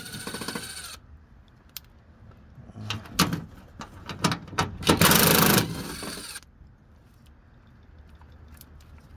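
Tool work on the bolts of a car's metal under-engine shroud: several bursts of rapid mechanical clicking and rattling, the loudest about five seconds in.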